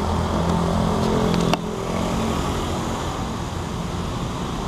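Road traffic with a motor vehicle engine running close by. About one and a half seconds in, the engine hum drops away suddenly with a click, leaving steady traffic noise.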